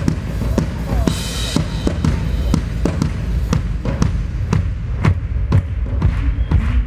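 Drum kit played live in a solo: sharp drum strokes about two a second over a steady low drum rumble, with a short cymbal wash about a second in.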